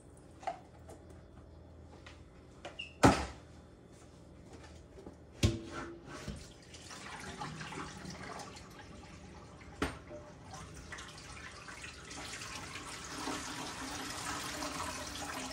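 A few knocks of kitchenware being handled, the loudest about three seconds in, then water from a kitchen tap running into the sink, growing louder toward the end.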